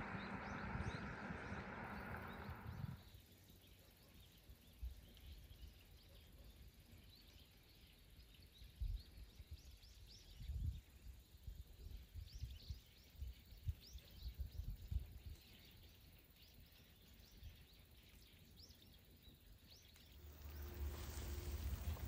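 Quiet open-field ambience with many faint, short high chirps scattered throughout and soft low thumps, most of them in the middle. A steadier rushing noise fills the first few seconds and comes back near the end.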